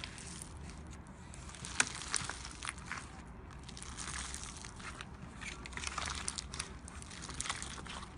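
Slime being squeezed and pressed by hand, with an irregular run of crackling, popping clicks; the sharpest pop comes about two seconds in.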